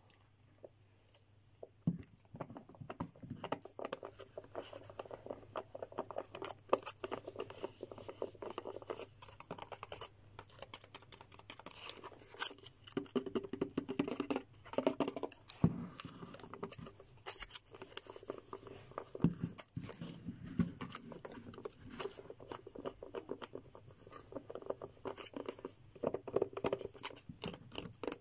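Fingernails tapping and scratching on a small plastic dessert cup: a quick, irregular run of light clicks and scrapes that starts about two seconds in.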